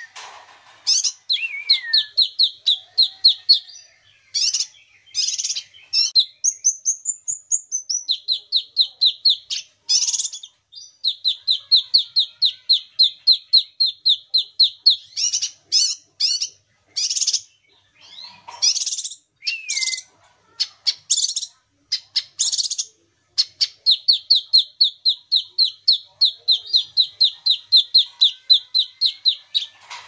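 Caged kinoi leafbird singing hard: long rapid trills of even, evenly spaced notes, broken by loud sharp notes and a few short slurred whistles.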